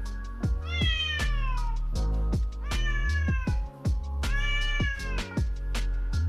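A house cat meowing three times, each meow long and falling in pitch, over background music with a steady beat.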